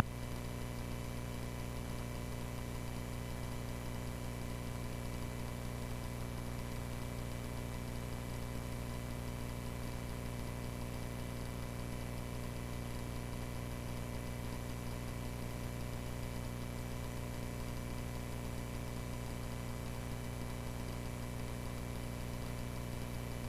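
Cessna 140A's piston engine running at a constant speed in flight: a steady, even drone that does not change.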